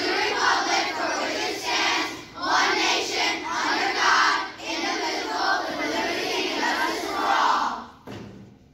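A large group of schoolchildren reciting the Pledge of Allegiance together in unison. The recitation ends about eight seconds in.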